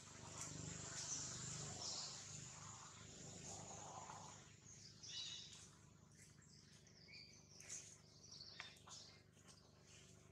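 Faint outdoor background of bird and insect calls: scattered short, high chirps over a soft hiss, with a few light clicks.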